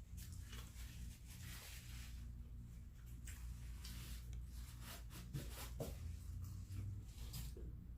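Faint rustling and scraping with a few small sharp clicks, over a steady low hum.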